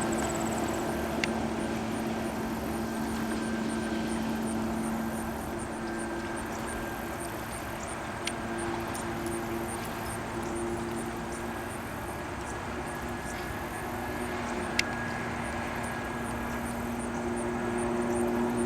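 Jet ski engine running at a steady speed, an even drone over a rush of wind and water, with a few sharp ticks.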